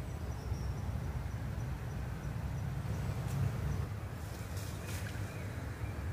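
Outdoor ambience by open water: a steady low rumble, with a faint thin high tone in the first two seconds or so and a few light clicks between about three and five seconds in.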